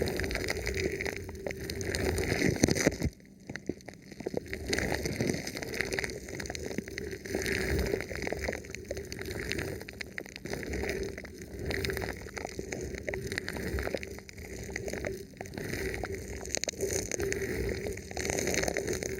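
Thin plastic film wrapped over a microphone being rubbed and touched, giving a steady run of crinkling and small crackles, with a brief pause about three seconds in.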